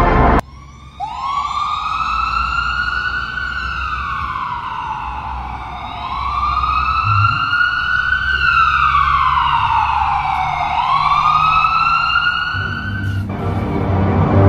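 Emergency-vehicle siren wailing, its pitch sliding slowly up and down about every five seconds. It starts about a second in and cuts off suddenly near the end.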